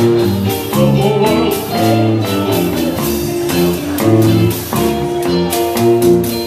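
A band playing a song led by guitar, with sustained pitched notes over a steady beat.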